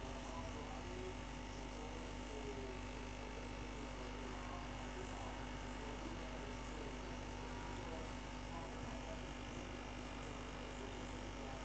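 Steady electrical mains hum from an aquarium's internal power filter pump.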